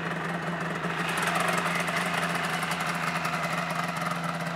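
1997 Yamaha Vmax SX 700 snowmobile's three-cylinder two-stroke engine idling steadily.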